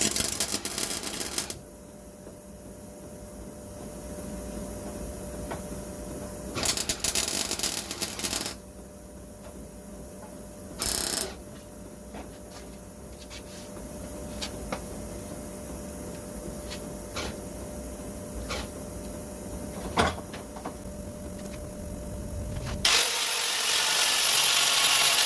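Short crackling bursts of a welder on the car's body steel, each lasting a second or two, with faint clicks between them. Near the end a power tool starts and runs continuously with a high, wavering whine.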